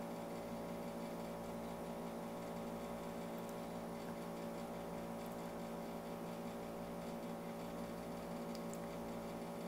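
Steady low electrical mains hum with faint hiss underneath, the recording's background noise with nothing else sounding.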